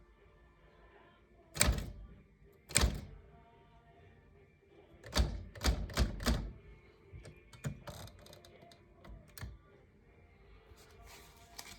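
Keys of a 1956 Smith Corona Silent Super manual portable typewriter being struck one at a time: two firm strokes about a second apart, then a quick run of four, then a few lighter clicks.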